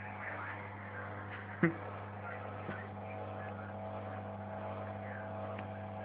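Top-loading washing machine running with a steady hum, and one brief sharp sound about a second and a half in.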